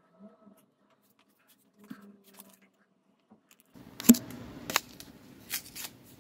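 Crisp crackles and clicks of a foil-and-paper wet-wipe sachet being picked up and handled, a few sharp ones in the last two seconds after a mostly quiet start.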